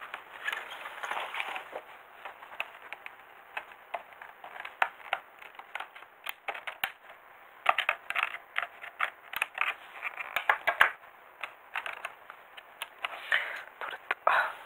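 Scissors snipping into a thin plastic blister tray to cut a small part free, with sharp snips and crackling of the plastic, thickest about halfway through.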